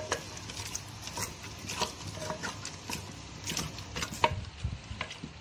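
Wooden spoon mashing soft-cooked tomatoes and mutton in a clay pot, with irregular knocks and scrapes of the spoon against the pot.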